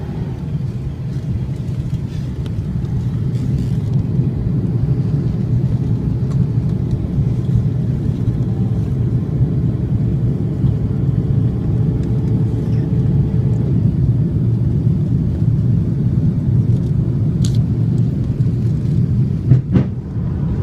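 Steady low rumble of an airliner in flight, engine and airflow drone heard inside the cabin, growing slightly louder over the first several seconds. A couple of sharp knocks come near the end.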